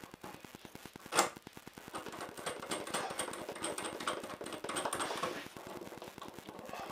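Small steel bearing-puller parts clicking and rattling against each other as the puller is fitted under a bearing race, with one sharp metallic click about a second in.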